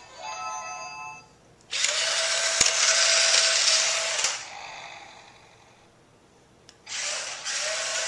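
Toy remote-control car's small electric motor whirring with a steady whine in two runs, one from just under two seconds in for about two and a half seconds and another starting about seven seconds in. A short steady electronic tone sounds at the start.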